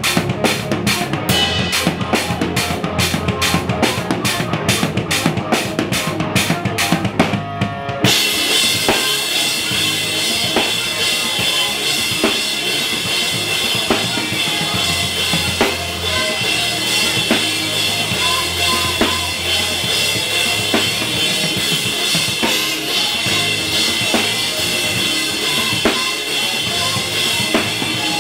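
Live rock band playing, with the drum kit loudest, heard close up from the drummer's position. The drums keep an even beat of about three hits a second, then about eight seconds in the band breaks abruptly into a denser, fuller section.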